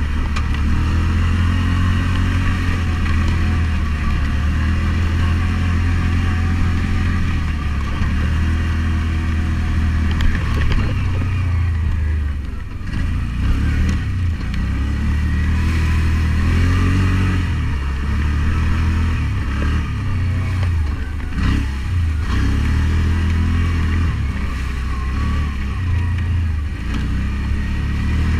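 ATV engine running as the quad is ridden over a rough trail, its pitch rising and falling with the throttle. It eases off briefly about halfway through, then picks back up.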